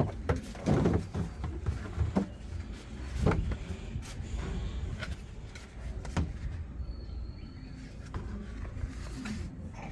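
Irregular knocks and clunks of a Samsung top-loading washing machine's panels and parts being handled during disassembly, over a low steady rumble.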